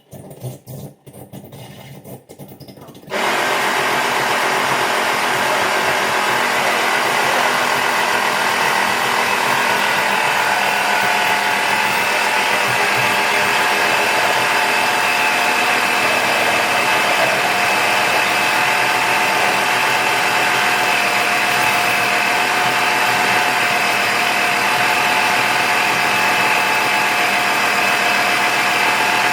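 Electric air compressor of an air horn kit running loudly and steadily, filling the horns' air tank; it switches on suddenly about three seconds in.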